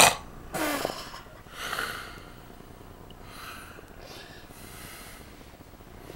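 A man snoring: three loud snores in the first two seconds, the first the loudest, followed by fainter breaths.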